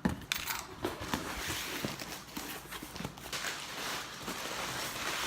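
Paper and cardboard packaging rustling and crinkling as a parcel is unpacked, with small knocks and clicks of the contents being handled.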